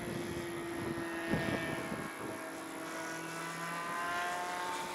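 Electric radio-controlled model biplane flying overhead: a steady whine from its electric motor and propeller, rising slightly in pitch in the second half. Wind rumbles on the microphone, with a brief gust about a second and a half in.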